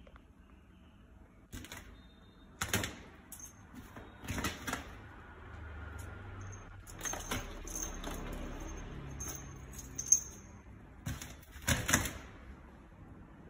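Kittens batting hollow plastic toy balls on a tiled floor: irregular sharp clicks and clatters as the balls knock and roll on the tiles, some in quick clusters, the loudest near the end.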